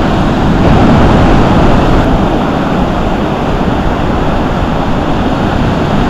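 Strong wind buffeting the microphone over the rush of surf washing up the beach: a loud, steady rumble with no pauses.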